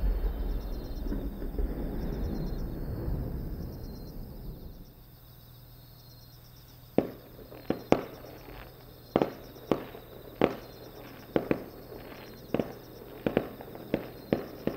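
Aerial fireworks: the low rumble of a large shell burst echoing and dying away over the first few seconds. After a short lull, more than a dozen sharp bangs follow in an irregular string from small shells bursting low in the sky.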